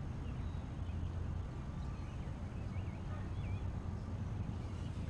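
Faint birdsong, a few short chirps that swoop up and down in pitch about halfway through, over a steady low rumble.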